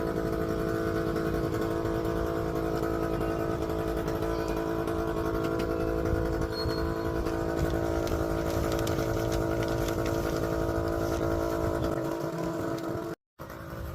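A small engine running steadily at a constant pitch, cutting off abruptly near the end.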